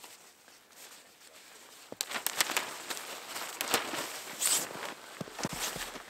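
Hammock tarp fabric rustling and flapping as its front panel is unhooked and lifted open, with footsteps in snow. Quiet for the first two seconds, then a run of crisp rustles and clicks.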